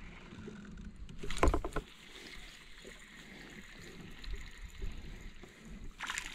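A small crappie splashing briefly at the water's surface as it is reeled to the boat near the end, over faint water noise. A louder rattling knock comes about a second in.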